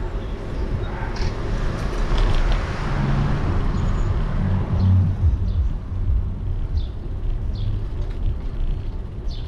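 Cars passing close by on a narrow street, a pickup truck and then a Tesla sedan, their engine and tyre noise swelling to loudest about two to five seconds in and easing off after. A steady low rumble of wind on the bike-mounted microphone runs underneath.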